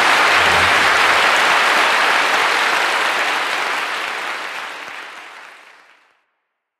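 Audience applauding in a church after a live concert performance, the applause fading out over the last few seconds.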